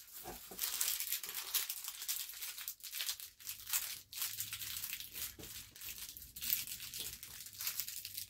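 Thin plastic packaging crinkling and being torn open by hand: a dense, continuous run of crackles.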